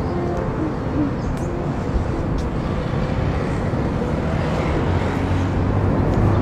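Outdoor street ambience: a steady rumble of traffic, growing gradually louder.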